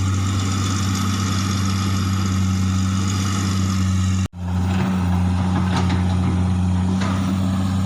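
Komatsu hydraulic excavator's diesel engine running steadily under work, a constant low drone, while clearing land and dumping topsoil. The sound cuts out for an instant about four seconds in.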